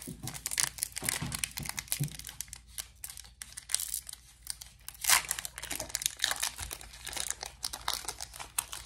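Foil wrapper of a Pokémon booster pack crinkling and tearing as it is opened: a dense run of crackles, loudest about five seconds in.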